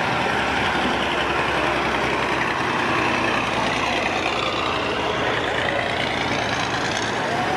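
Heavy WWII military vehicles moving slowly past at close range, led by a Scammell Pioneer heavy truck whose diesel engine runs steadily, with other engines behind it.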